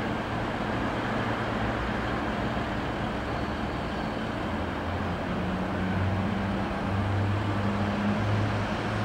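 Diesel multiple-unit trains running through the station over a steady background rumble. A low engine hum grows louder through the second half.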